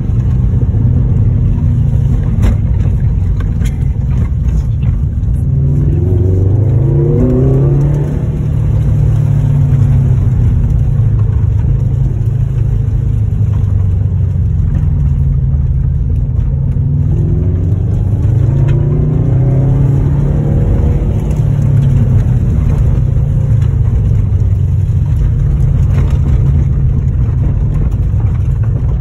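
Subaru WRX STI's turbocharged flat-four engine heard from inside the cabin, driving along with tyre and road noise. The engine note climbs twice under acceleration, once a few seconds in and again a little past halfway.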